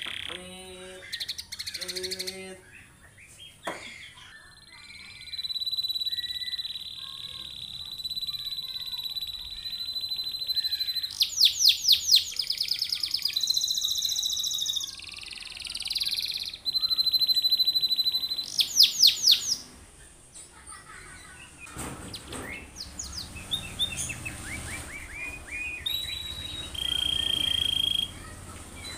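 Domestic canary singing: a long steady rolling trill held for several seconds, bursts of very fast repeated notes and short whistled phrases, with a brief lull about two-thirds of the way through.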